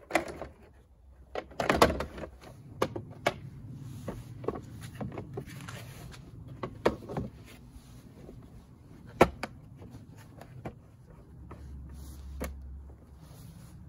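Plastic clicks and knocks from a truck side-mirror cap being pried at and pressed onto the mirror housing, a dozen or so separate sharp snaps and taps.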